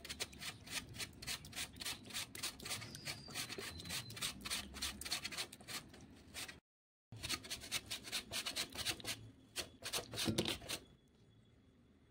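Potato being shredded on a stainless steel box grater: quick rasping strokes, several a second, broken once by a short dropout just past midway and stopping about a second before the end.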